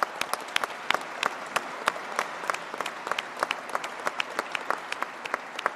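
A small crowd applauding, with many individual hand claps standing out sharply, easing off slightly near the end.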